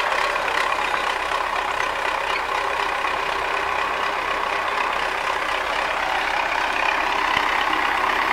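MTZ tractor diesel engine running steadily close by.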